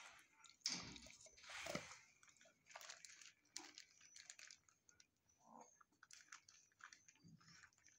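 A dog chewing and crunching food: a string of faint, irregular crunches and clicks, two louder ones in the first two seconds.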